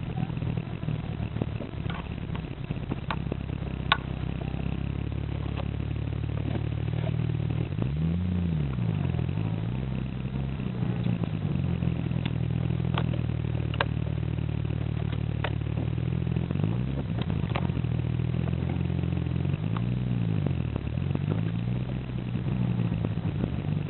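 Car interior while driving: a steady engine and road hum whose pitch rises and falls several times, with scattered sharp ticks. The ticks are the abnormal noise that the owner traces to around the instrument cluster, a noise he says quickens with road speed.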